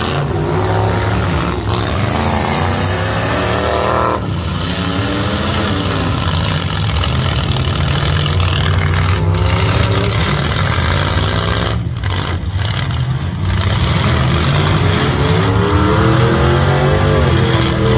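Several demolition-derby pickup truck engines running loudly together, revving up and down in pitch as the trucks accelerate and push against each other, over a steady low engine rumble.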